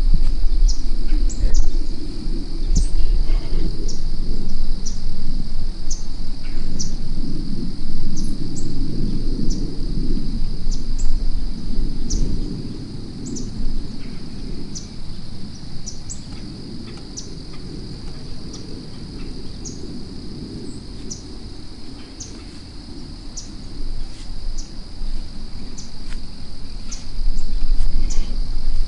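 Outdoor ambience: a steady high insect drone with a short high chirp a little more than once a second. Beneath them is a low rumbling noise that eases off about halfway through and comes back near the end.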